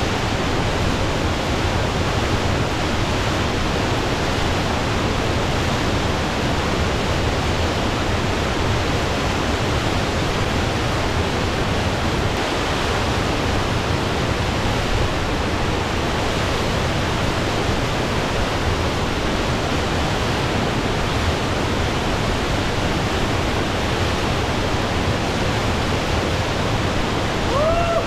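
Mountain waterfall rushing, a steady loud wash of falling water. A brief rising tone sounds once near the end.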